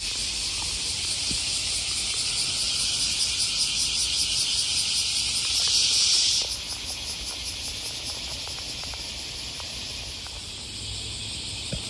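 Loud chorus of cicadas, a high-pitched pulsing buzz that drops in level a little over six seconds in.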